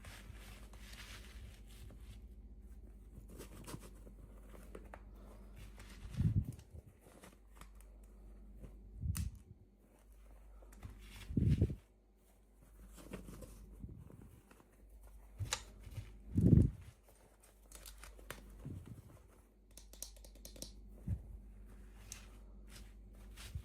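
Toy packaging being torn open and crinkled by hand, with scattered crackling clicks and four dull handling thumps, the loudest about two-thirds of the way through.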